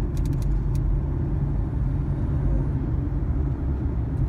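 Car cabin noise while driving over a bumpy road: a steady low rumble of tyres and suspension. A quick run of small clicks comes in the first second.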